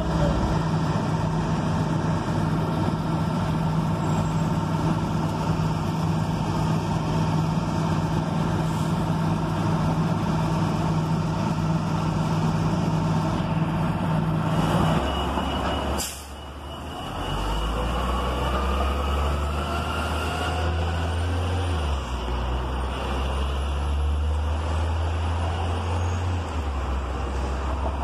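CNG-fuelled New Flyer C40LF transit bus with a John Deere 6041H engine, running steadily at idle. About halfway through comes a sudden sharp noise, after which the engine and drivetrain pitch rises as the bus pulls away.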